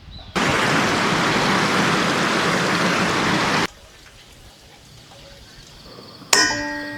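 Stream water rushing, a loud steady wash that cuts in suddenly and stops abruptly after about three seconds. Music starts near the end.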